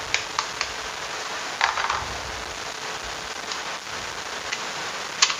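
A few light clicks and taps over a steady hiss, with a short rustle about two seconds in.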